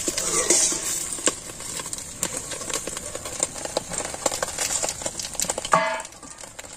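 Rapid crackling and sizzling from a kadai frying banana-leaf-wrapped food over a wood-fired clay stove, as its steel plate lid is lifted off. A short ringing tone sounds near the end.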